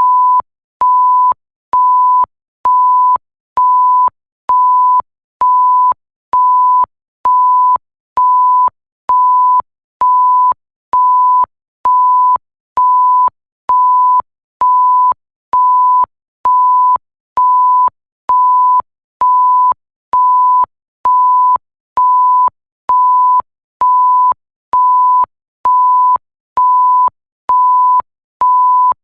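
Electronic 1 kHz sine-tone bleep repeating about once a second. Each beep lasts about half a second, with a short silent gap between beeps and a faint click where each one switches on and off.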